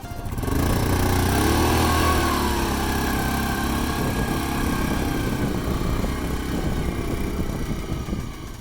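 Motorbike engine revving hard while the bike is stuck. The revs rise and fall about a second in, then the engine runs steadily and drops away near the end.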